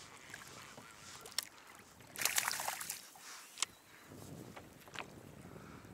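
Water lapping against a plastic kayak hull, with two sharp knocks and a short splashy burst a little past two seconds in.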